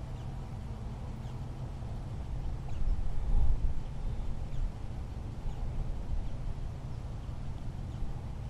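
Wind buffeting an outdoor microphone as a low rumble that swells in a gust about three seconds in. Faint, short, high chirps come through it now and then.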